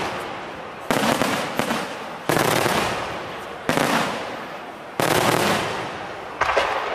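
Aerial fireworks bursting in a steady sequence: five sharp bangs about every second and a half, each followed by a crackle that fades away.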